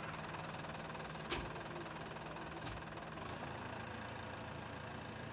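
An engine running steadily at idle, with a sharp click about a second in.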